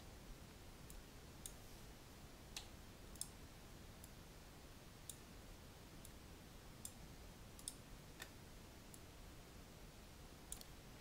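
Faint computer mouse and keyboard clicks, about ten of them at uneven intervals, over near-silent room tone.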